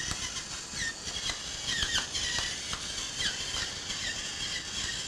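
Hand pepper mill being twisted to grind pepper: a steady gritty grinding with many short squeaks.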